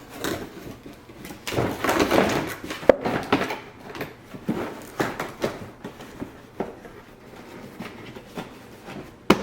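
Irregular knocks, clicks and clatter of objects being handled, busiest about a second and a half in, with a sharp knock near the end.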